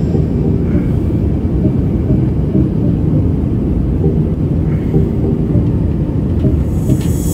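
Steady low rumble inside the cabin of an Airbus A350-900 airliner: jet engine and airflow noise in flight.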